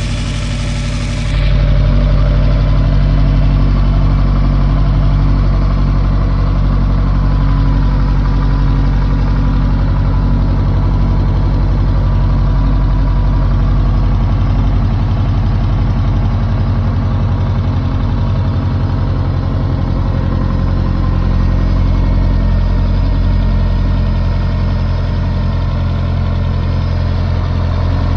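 Subaru Impreza WRX STI (GVF) turbocharged EJ257 flat-four with unequal-length headers and a high-lift cam, running at cold-start idle. It gets louder about a second in and then idles steadily. The owner is listening for a knock that could mean spun rod bearings.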